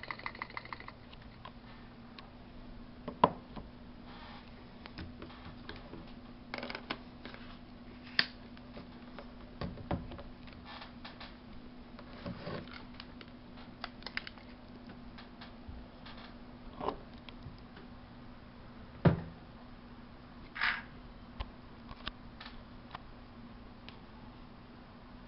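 Steady low mechanical hum from a Nikon 70-300 VR lens's vibration-reduction mechanism, picked up by the D90's built-in microphone: the annoying noise that comes with the picture shaking. Scattered sharp clicks and knocks sound over it, the loudest about three seconds in and near nineteen seconds, with a brief fast ticking at the very start.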